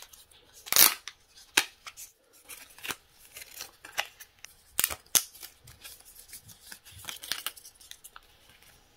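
Thin clear plastic protective film crackling and crinkling as it is peeled off an AirPods charging case, in a run of irregular sharp crackles and clicks.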